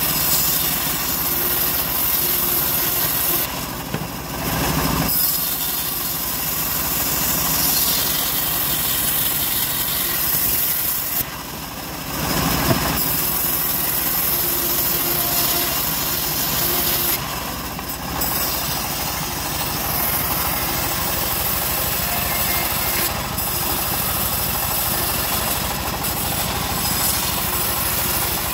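Homemade band sawmill cutting teak planks: the band blade running through the wood over the steady running of the mill's stationary engine. The cutting noise dips briefly a few times, between passes.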